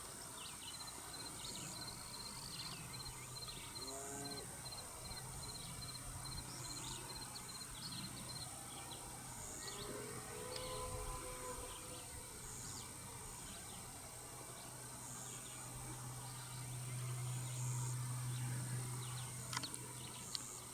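Faint outdoor ambience of birds calling: scattered short high chirps and a rapid run of repeated high notes in the first half, with a few lower calls. A steady low hum swells over the last few seconds.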